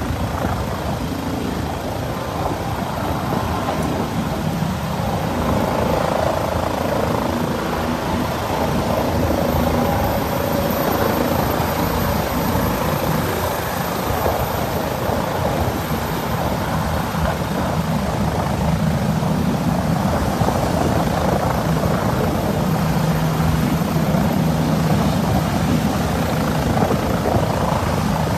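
Medical transport helicopter lifting off: loud, steady rotor and turbine engine noise that grows a little louder after the first few seconds as it rises off the ground and climbs away.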